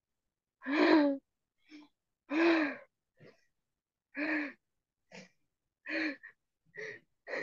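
A woman's hoarse, breathy shouts of anger release. Two loud ones come about one and two and a half seconds in, then a run of shorter, quieter bursts.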